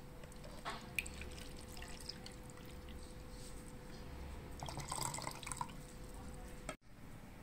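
Faint pouring and dripping of thick rice-flour batter streaming from a bowl into a plastic measuring jug, with a light tick about a second in and a louder patch of splattering about five seconds in.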